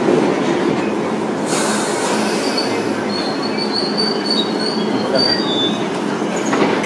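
London Underground 1973 Stock tube train running into the platform and slowing to a stop, its wheels rumbling steadily. A brief hiss comes about a second and a half in, then a high, wavering squeal for a few seconds through the middle.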